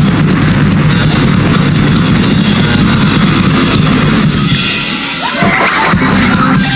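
Live rock band playing an instrumental passage, with distorted electric guitar, bass and a drum kit. The band thins out briefly about five seconds in, with a gliding guitar note, then comes back in full.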